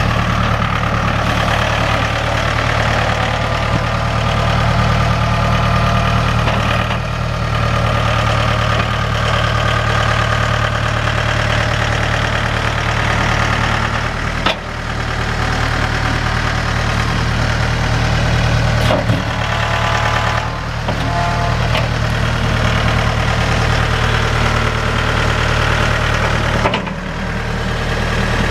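Mahindra 1533 HST tractor's three-cylinder diesel engine running steadily at idle, with a few short, sharp knocks partway through.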